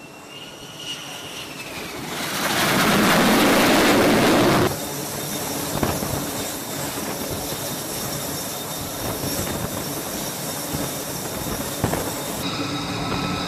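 F-35C's single F135 turbofan whining as the jet approaches the carrier deck with gear down, swelling into a loud jet roar for about two and a half seconds that cuts off abruptly. After that a quieter, steady jet engine running on the flight deck with a high whine.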